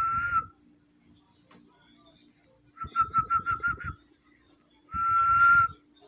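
A person whistling one mid-pitched note three times, close to the microphone, so the breath noise is heard with it: a short note at the start, a warbled note broken into about seven quick pulses around three seconds in, then a longer steady note near the end.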